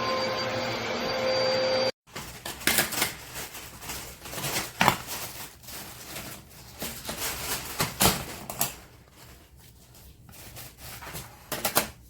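Hoover Back Pack Bagless vacuum cleaner running with a steady whine, cutting off abruptly about two seconds in. It is followed by irregular clicks and knocks.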